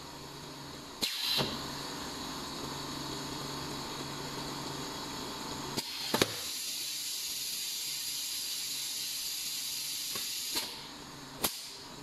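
Pneumatic cylinders and valves of a semi-automatic PVC refrigerator gasket welding machine working through a weld cycle over a steady machine hum. A short burst of air hiss comes about a second in, then sharp clicks and about four seconds of steady air hiss, and a single sharp click near the end.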